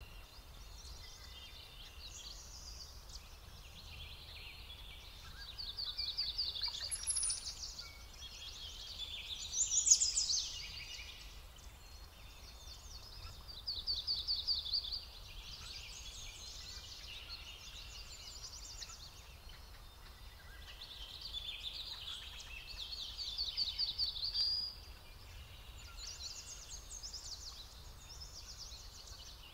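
Small birds singing: phrases of quick, high, trilled notes that come again every few seconds, the loudest about a third of the way in, over a low steady rumble.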